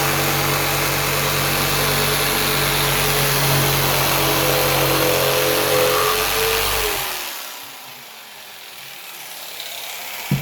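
Black & Decker BDEJS300C corded jigsaw running at full speed, sawing a curve through pine board. About seven seconds in the trigger is let go and the motor winds down with a falling whine. A single knock comes at the very end.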